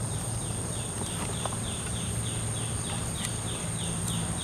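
Wildlife ambience: an animal repeating a short falling chirp about three times a second, over a steady high-pitched drone and a low hum.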